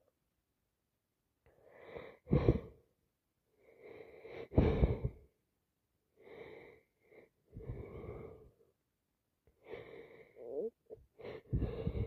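A woman with a summer cold sneezing again and again, each sneeze led in by a catching, drawn-in breath. The two loudest, sharpest sneezes come about two and a half and four and a half seconds in, followed by further gasping breaths and sneezes.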